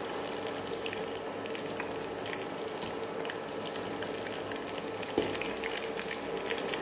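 Chicken pakoda pieces deep-frying in hot oil: a steady sizzle with scattered crackles, stirred through with a wire skimmer. One sharper click comes about five seconds in.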